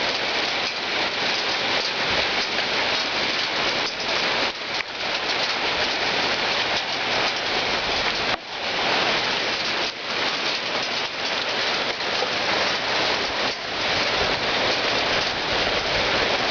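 Hailstorm: hail and rain pelting down steadily, a dense continuous clatter of many small hits.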